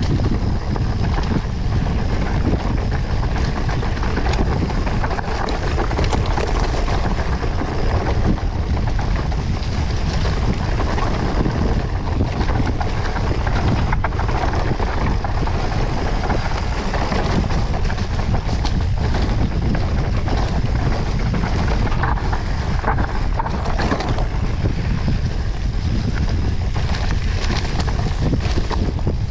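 Mountain bike ridden over a rough dirt trail, heard from a handlebar-mounted camera: constant wind buffeting on the microphone over the low rumble of the tyres and small rattles from the bike.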